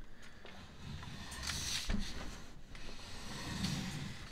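A Philips CD304 CD player being handled, turned over and set down flat on a workbench: its casing slides and scrapes across the desk, with a short knock about two seconds in and a low bumping near the end as it settles.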